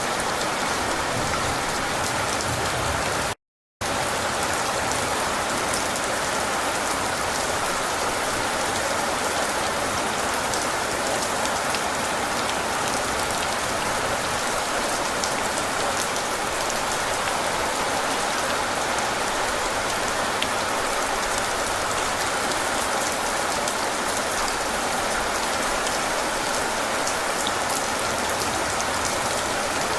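Steady rain falling hard and evenly. The sound cuts out to complete silence for a split second about three and a half seconds in. No thunder is heard.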